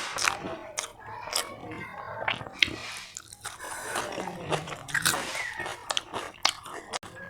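A person biting and chewing crunchy food close to the microphone, with many irregular, crisp crunches.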